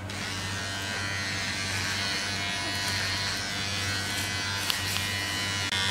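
Electric hair trimmer buzzing steadily as it is run through a small child's hair, during the trimming stage of a home haircut.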